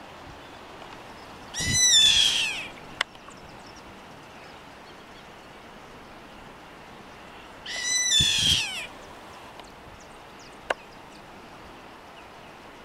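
A caracara gives two shrill, downward-gliding screeching calls, each about a second long and about six seconds apart. A short sharp click follows the first call, and another comes about two-thirds of the way through.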